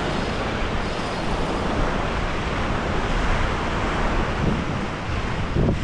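Steady wind noise on the microphone over small surf washing up on a sandy beach.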